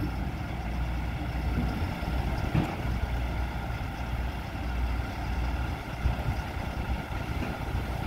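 Genie telehandler's diesel engine idling steadily, a low rumble.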